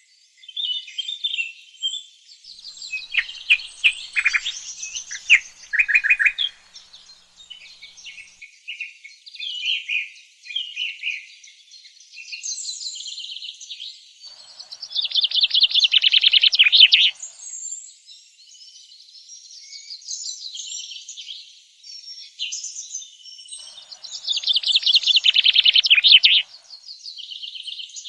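Songbirds chirping and singing, several calls overlapping, with two long rapid trills that are the loudest parts, about fifteen and twenty-four seconds in.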